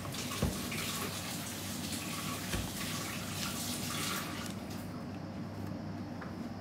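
Kitchen tap running into a stainless-steel sink, with hands rinsed under it, for about four and a half seconds before the water is shut off. A short low knock sounds about half a second in.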